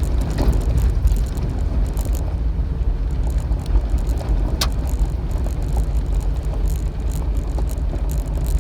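Jeep Wrangler driving, heard from inside the cab: a steady low engine and tyre rumble with small rattles, and one sharp click about four and a half seconds in.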